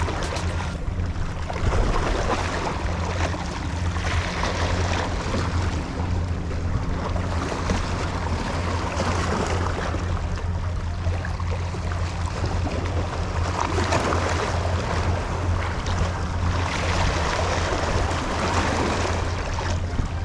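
Sea waves surging and washing against rocks every few seconds, over a steady low hum.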